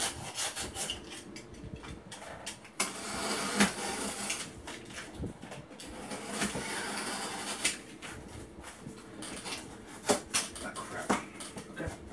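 Utility knife slicing through the packing tape and cardboard of a shipping box: a long scratchy cut in the middle, with a few sharp clicks and knocks from the blade and the cardboard flaps.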